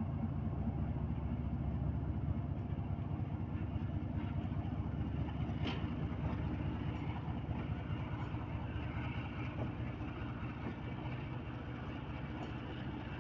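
Pakistan Railways GEU-40 diesel-electric locomotive running with a steady drone as it pulls the train away, with the passenger coaches rumbling past on the rails. A single sharp click comes about six seconds in.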